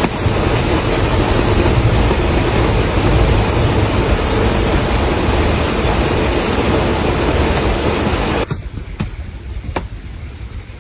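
Heavy rain falling steadily, a dense even hiss that cuts off suddenly about eight and a half seconds in, leaving lighter scattered drips.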